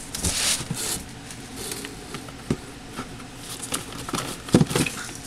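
Hands rummaging in a cardboard shipping box among packaged items: a rustle near the start, then several light knocks and clicks as things are moved.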